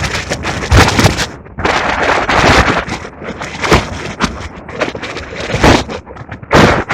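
Strong gusty wind buffeting the microphone in irregular loud blasts and rumbles.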